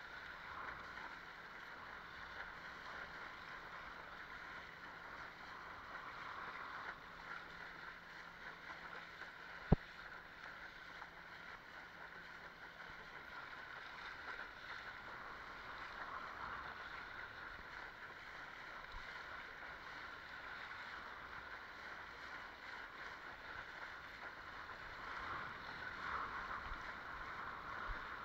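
Water rushing and splashing steadily along the hull of a Fanatic Ultra Cat longboard windsurf board under sail, with one sharp click about ten seconds in.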